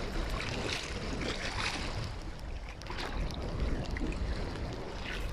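Wind buffeting the microphone, with lake water lapping and splashing in the shallows around wading legs.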